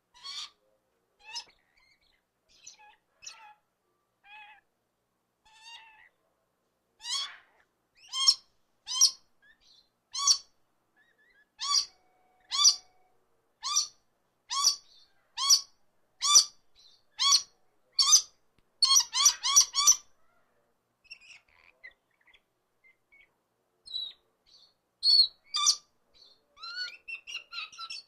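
A bird calling over and over with short, high, downward-sliding calls, about one a second. The calls bunch into a rapid chatter about two-thirds of the way in, then after a pause come a few more scattered calls.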